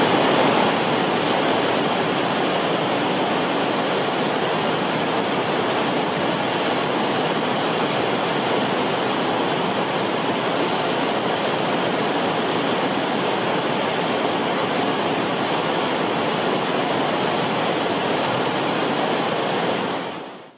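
Forest stream flowing with a steady rush of water, fading out near the end.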